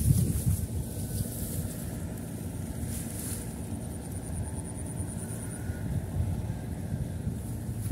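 Wind buffeting the microphone outdoors, a steady low rumble that rises and falls unevenly. About halfway through, a faint, fast high-pitched ticking joins it briefly.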